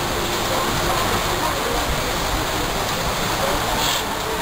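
Steady rushing hiss of background noise with no distinct events, and a brief higher hiss near the end.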